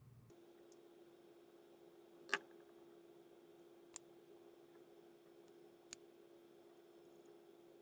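Three short sharp clicks, the first the loudest, from a folding knife being handled during reassembly, over a faint steady hum.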